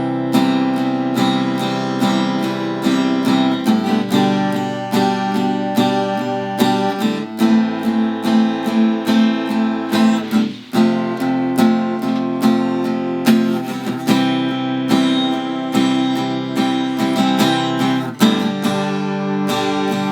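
Freshly restrung Fender acoustic-electric guitar strummed in chords: a steady run of strums with changing chords and a short break about ten seconds in. The new strings are still settling and detuning themselves.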